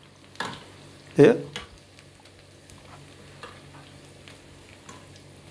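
Homemade potato French fries frying in hot fat: a steady, faint sizzle with a few light clicks scattered through it.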